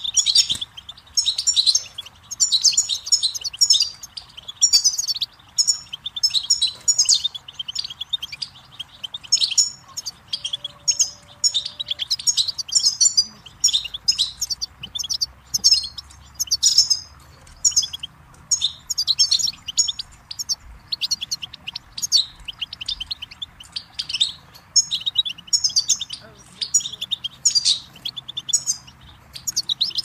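European goldfinch singing: a continuous run of fast, twittering phrases with short pauses between them. The steady rush of a stream runs faintly underneath.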